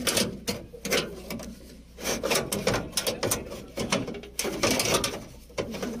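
Dump truck door lock mechanism being worked, giving irregular clicks, clacks and short rattling runs. The lock's internal plastic spacers are broken, so it does not latch steadily.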